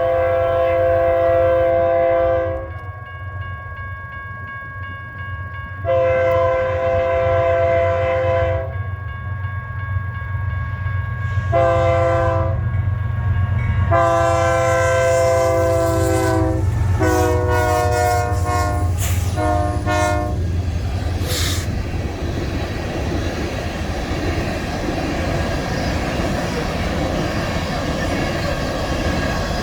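BNSF diesel locomotive's air horn sounding a chord in the grade-crossing pattern: two long blasts, a short one and a long one, then a quick run of short toots. After that, the steady rumble and clatter of the locomotive and rail cars passing over the crossing.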